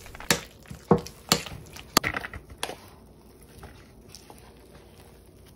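A metal utensil knocking and scraping against a ceramic mixing bowl as a thick mayonnaise filling is stirred: about five light, sharp knocks in the first half.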